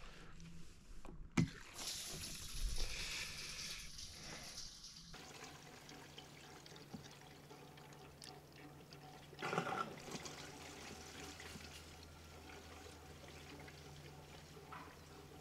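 Diesel fuel pouring from a plastic fuel can's spout into a Kubota M5700 tractor's fuel tank, a steady pour with one knock about a second in, ending abruptly after about five seconds. After it comes a faint steady low hum with a brief rush of noise near the middle.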